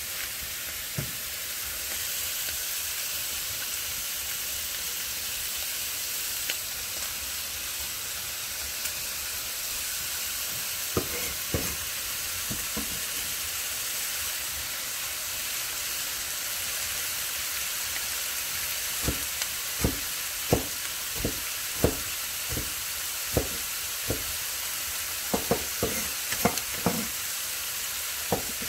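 Chicken, turkey bacon and vegetables frying in oil in a skillet: a steady sizzling hiss. A few sharp clicks and knocks sound over it about eleven seconds in, and more of them come in the last ten seconds.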